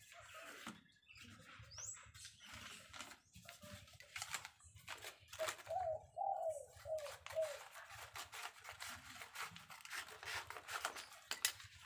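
Scissors snipping through stiff brown cement-sack paper, with the paper rustling as it is handled. A bird calls several times in a short run around the middle.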